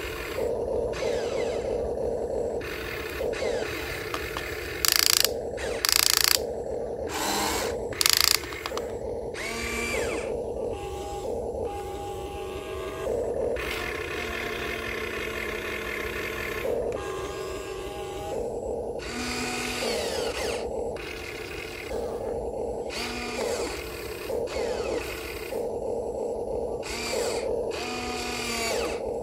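Small electric motors and gears of a radio-controlled model excavator whining as it works, in short runs that start, stop and rise and fall in pitch. Three brief, much louder bursts come about five, six and eight seconds in.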